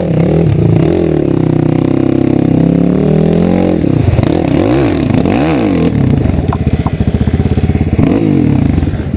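Dirt bike engine, heard close up from the rider, revving up and down repeatedly as the throttle is worked through mud and water. It holds fairly steady at first, then rises and falls in several quick blips from about four seconds in.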